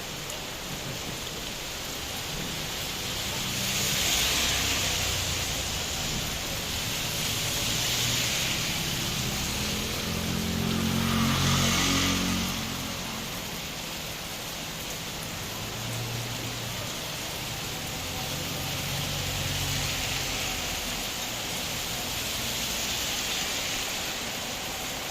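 Heavy rain falling steadily. A low rumble swells and fades several times, loudest about eleven to twelve seconds in.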